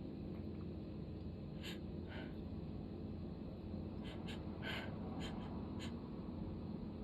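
A person sniffling during a sneezing fit: several short, faint sniffs, most of them in the middle seconds, over a steady low hum.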